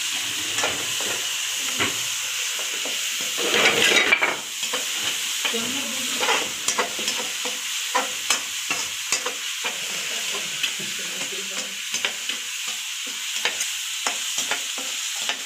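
Chopped vegetables sizzling as they stir-fry in hot oil in a metal kadhai, with a spatula clicking and scraping against the pan. The sound is briefly louder about four seconds in.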